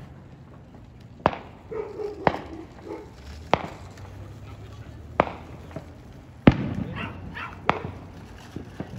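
Fireworks set off by people around the neighbourhood: six sharp bangs at uneven intervals of one to two seconds. The one about six and a half seconds in is the loudest.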